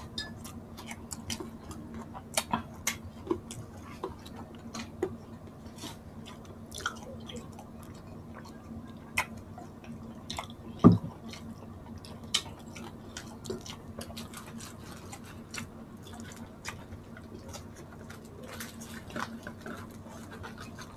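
Close-miked chewing and eating sounds from two people eating crispy deep-fried pork and noodles by hand: scattered wet mouth clicks and smacks, with one louder mouth sound about eleven seconds in, over a steady low hum.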